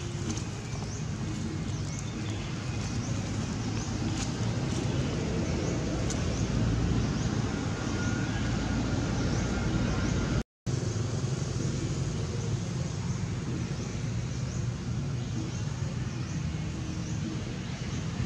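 Steady low rumble of outdoor background noise, with faint short high chirps repeating over it. The sound cuts out for a moment about halfway through.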